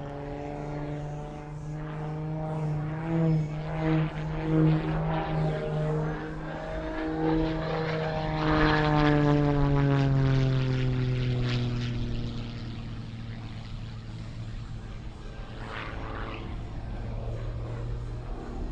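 Single-engine propeller aerobatic plane flying a display routine, its engine and propeller sound changing pitch and loudness through the manoeuvres. It swells in several pulses, is loudest about halfway through, then slides down in pitch and settles lower.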